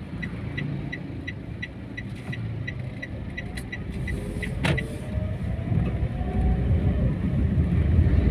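Turn-signal indicator ticking in the cabin of a Daihatsu Ayla, about three ticks a second, stopping with a click just past halfway. Under it the car's 1.2-litre four-cylinder engine and the tyre noise run steadily and grow louder near the end as the car picks up speed.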